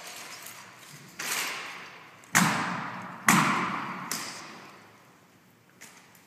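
Drill rifles being slapped and struck in unison during a rifle drill routine: four sharp cracks about a second apart, the middle two loudest, each echoing off the hall.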